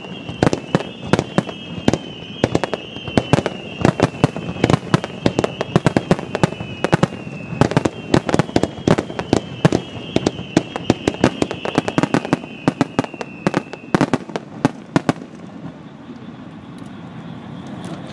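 Firework shells bursting in a dense barrage, sharp bangs several times a second, with a high whistling tone that falls slowly and repeats under them. The bangs thin out about fifteen seconds in, leaving a quieter hiss.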